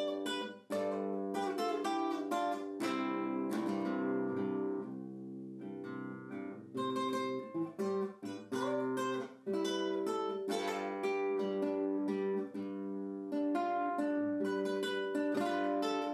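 Solo classical guitar played fingerstyle: a steady run of plucked notes that ring on, recorded with one microphone and no EQ.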